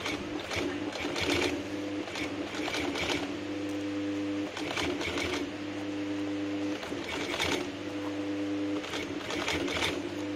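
Industrial single-needle walking-foot sewing machine, a large-hook machine set for 12 mm stitches, sewing thick sofa leather in about six short runs of stitching, each under a second. A steady hum sounds in the pauses between runs.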